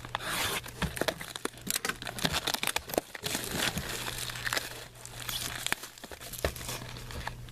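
Plastic shrink wrap being torn and crumpled off a sealed box of trading cards: continuous crinkling with many sharp crackles.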